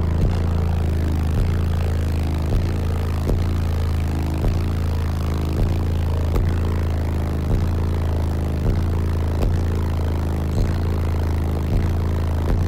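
Car-audio bass demo heard inside the cabin: six Sundown ZV5 15-inch subwoofers on a Sundown Salt 8K amplifier play a loud, deep, steady bass line with a beat about once a second.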